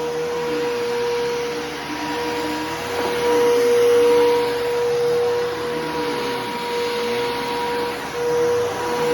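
Bissell PowerForce Helix Turbo upright vacuum cleaner running, a steady motor whine over rushing airflow. It swells and eases in loudness every second or two as it works the floor.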